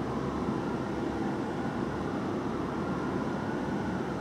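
Steady rumble of city street traffic and a heavy fire engine pulling away, with a faint siren wail slowly rising and falling in the background.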